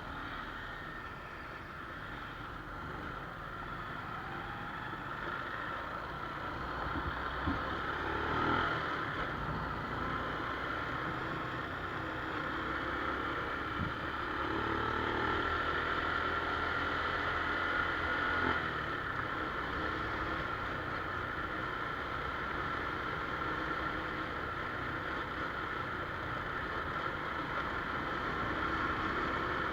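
A motorcycle running steadily, its engine drone mixed with road noise, with a few brief knocks along the way.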